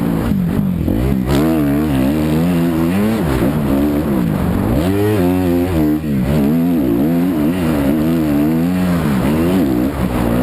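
Motocross motorcycle engine revving hard, its pitch climbing and dropping back again and again as the throttle is opened and closed.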